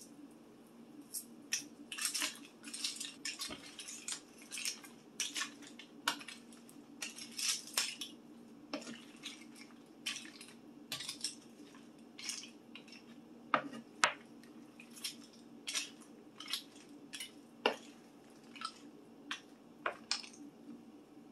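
A cooking utensil stirring and scraping potatoes and vegetables around a pan, with irregular clinks and scrapes against the pan, over a low steady hum.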